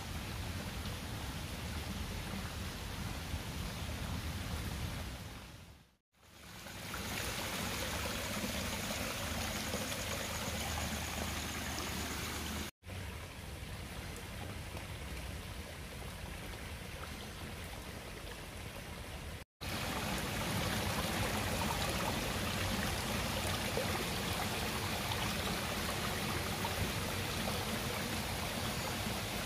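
Water running over a small rock waterfall and cascading into a garden pond: a steady splashing and trickling that drops out briefly three times.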